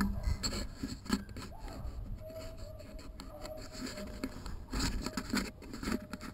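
Footsteps crunching through dry leaf litter and brush, with twigs scraping and snapping, loudest about five seconds in. Behind them a dog bays in the distance several times, each call rising and then holding its pitch.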